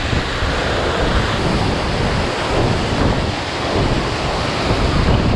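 Loud rushing water of a mountain stream, with strong gusty wind buffeting the microphone in irregular low rumbles.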